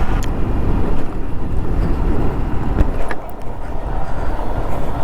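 Wind buffeting the microphone of a moving motorcycle, a steady low rumble with the engine and road noise underneath, easing off briefly about three seconds in.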